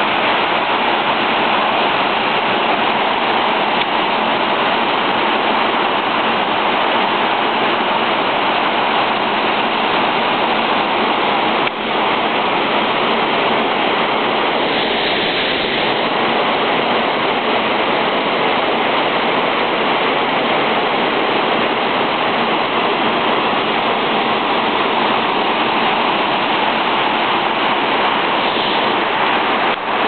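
Waterfall pouring over rock into a foaming pool: a loud, steady rush of falling water, with a brief dip about twelve seconds in.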